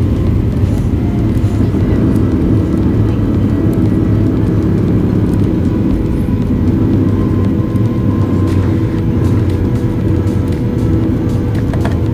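Steady loud roar of a Boeing 737's jet engines heard inside the cabin, a low even rumble with a few steady tones through it.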